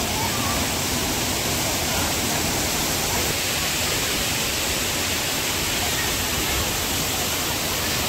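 Waterfall cascading down rock into a plunge pool: a steady, even rush of falling water.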